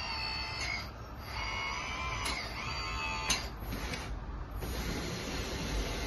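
Electric hydraulic pump of a Kabolite K961 1/18 RC hydraulic excavator whining in two spells as the boom and arm are worked, its pitch shifting with the load, with two sharp clicks about two and three seconds in. From about four and a half seconds it runs on with a steadier, rougher noise and no whine.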